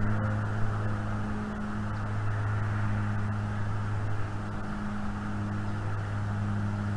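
Steady low mechanical hum, like a distant engine, over a faint hiss of background noise.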